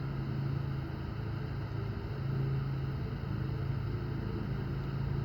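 Steady low hum of a running engine, unchanging throughout.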